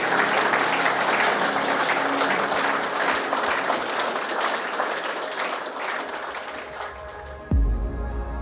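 A roomful of footballers applauding, the clapping dying away near the end, with soft music underneath. A sudden deep boom comes in just before the end.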